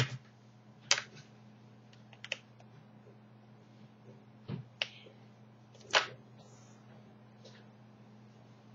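Scattered clicks and knocks of hands handling a small tablet on a tabletop, about six in all, the loudest right at the start and about six seconds in, over a steady low hum.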